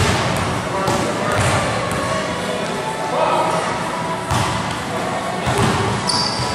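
Basketball bouncing and thudding on a gym court floor, several separate impacts, over faint background voices and music.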